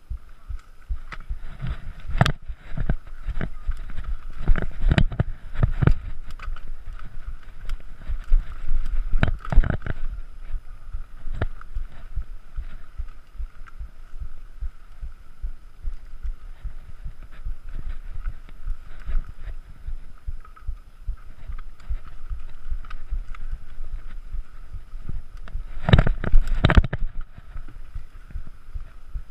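Bicycle jolting over rough trail ground: a steady rushing noise with repeated low bumps and knocking rattles. A burst of louder knocks comes near the end.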